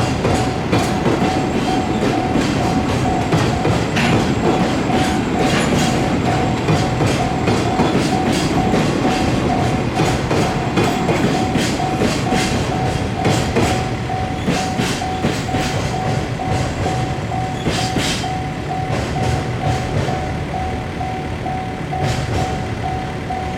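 Freight train of flat wagons loaded with long rails rolling past, its wheels clacking over the rail joints, the rumble easing off in the second half. A level crossing alarm bell keeps ringing with an even, repeating ding.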